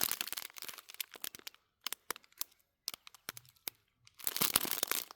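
Small plastic bags of diamond painting drills being handled, crinkling at the start and again about four seconds in, with scattered short clicks between.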